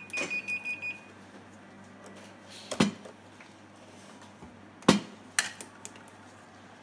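A digital multimeter's beeper chirps in a quick run of short, high-pitched beeps for about a second as the test probes are touched to the white LEDs of an LED light bar. Then come two sharp knocks, about three and five seconds in, and a few lighter clicks, as the probes and gloved hands are set on the LED board.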